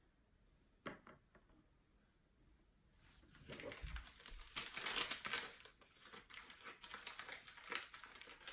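A couple of small clicks, then from about three seconds in the crinkling and rustling of a plastic trading-card pack wrapper being handled and opened.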